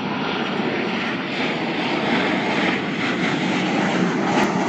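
Jet airliner's engines running as it passes low over the runway: a steady, loud rushing noise.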